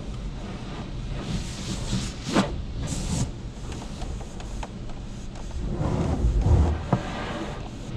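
High-pressure water and foam from a touchless car wash spraying against the car's windshield and body, heard from inside the car as a steady hiss and drumming with a low rumble. It swells in two heavier passes, about two and six seconds in, each with a sharp knock.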